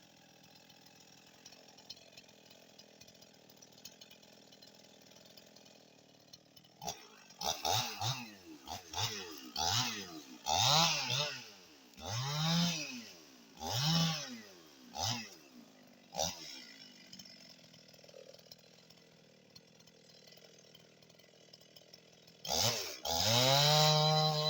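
Husqvarna 55 Rancher two-stroke chainsaw, fitted with a new aftermarket cylinder and piston, running low and quiet at first, then revved in a series of quick throttle blips, each pitch rising and falling. Near the end it is opened up and held at a steady high-revving note.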